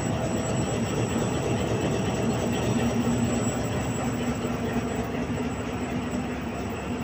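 Pakistan Railways HBU-20 diesel-electric locomotive idling at a standstill, heard close up: a steady engine drone with a low hum.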